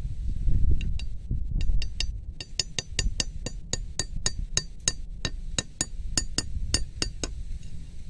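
A metal blade tapping a small wooden stake into hard ground: a steady run of sharp ringing clinks, about three a second, stopping about seven seconds in.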